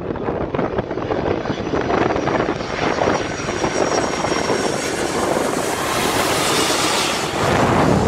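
Boeing 757 on final approach passing low overhead: the jet engines' rush builds, with a faint high whine, to its loudest about six to seven seconds in. Wind buffets the microphone.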